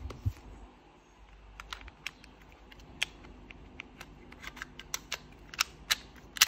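Scattered light clicks and taps from an airsoft Glock pistol with a Nova slide being handled, coming more often in the second half.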